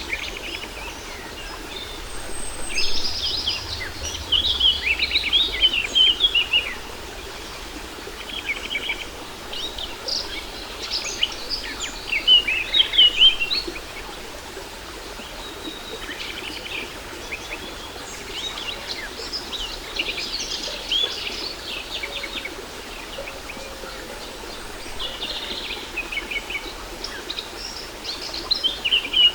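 Small songbirds chirping and twittering in quick bursts that come and go, over a steady rush of falling water from a waterfall.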